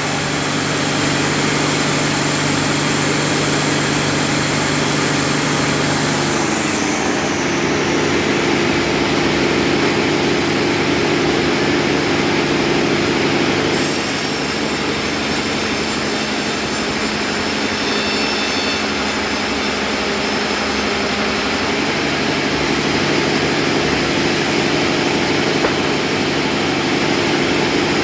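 Electric power tool running steadily while working wood, its motor hum stepping to a different pitch a few times as the load changes.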